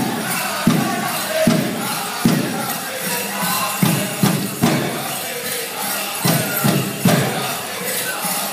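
Powwow drum group singing high over a big drum struck in unison, with the strokes coming closer together after about four seconds. Dancers' bells jingle throughout.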